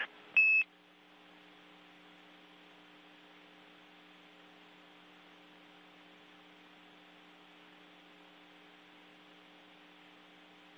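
A short electronic beep on the space-to-ground radio link about half a second in, then a faint steady electrical hum with hiss on the line.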